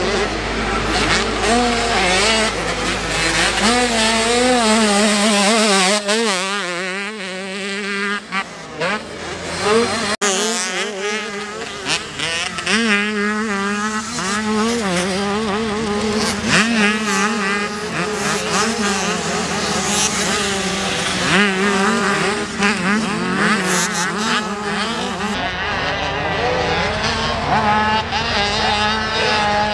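Motocross bike engines revving hard and easing off as riders go around a dirt track, the pitch rising and falling with the throttle. The sound changes abruptly a few times, near 6 and 10 seconds in.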